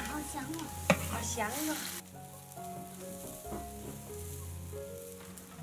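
Food sizzling for about the first two seconds, then cutting off suddenly, with one sharp knock about a second in. Soft instrumental music with held notes runs underneath.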